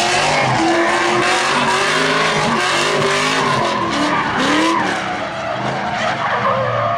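Drift car sliding through a run: the engine revs rise and fall with the throttle over a continuous screech of spinning, smoking rear tires.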